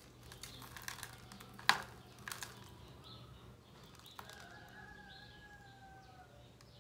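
Fingers crumbling potting soil off a succulent's root ball over a plastic tub: light rustling and small clicks, with one sharp click about two seconds in. In the second half, a faint held tone lasts about two seconds, falling slightly in pitch.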